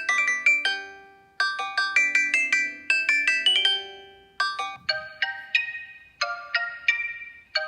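Xiaomi Redmi Note 4 stock ringtone playing: a quick melody of bright, chiming notes that repeats twice. About five seconds in it gives way to a different, slower tune of single chiming notes, about three a second.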